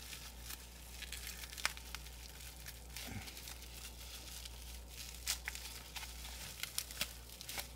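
Bubble wrap crinkling and crackling in the hands, with scattered sharp clicks, as red electrical tape is picked and peeled off a wrapped bundle.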